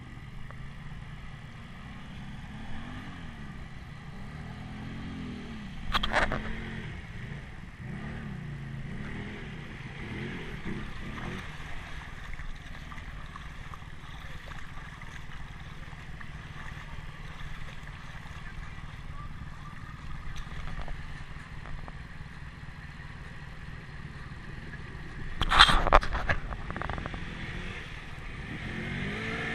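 Can-Am ATV engines running as they ploughs through a muddy water hole, the pitch rising and falling with the throttle for the first ten seconds or so, then steadier. Two loud sudden bursts break in, one about six seconds in and a louder one near the end.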